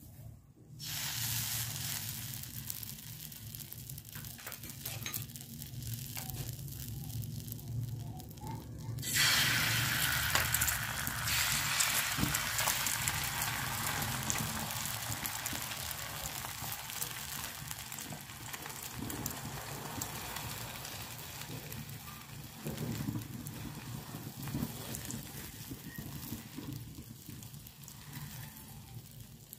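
Egg and a burger bun frying in oil on a flat griddle (tawa), sizzling. The sizzle comes in about a second in, jumps much louder about nine seconds in, then slowly dies down.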